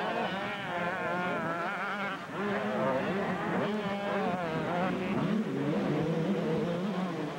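Several 125cc two-stroke motocross bikes racing, their engines revving up and down in overlapping, wavering whines over a steady low hum.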